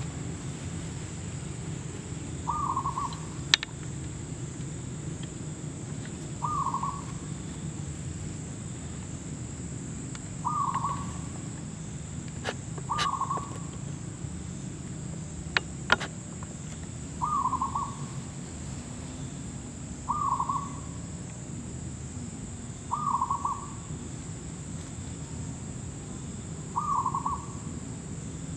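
Zebra dove cooing: a short phrase repeated about every three to four seconds, eight times, with a few sharp clicks in between.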